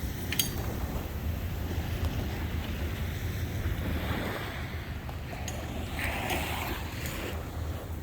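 Waves washing onto a sandy beach with a steady hiss, and wind rumbling low on the microphone.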